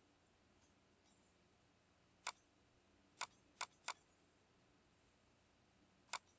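Computer mouse button clicking five times over near-silent room tone: once about two seconds in, a quick run of three a second later, and once more near the end.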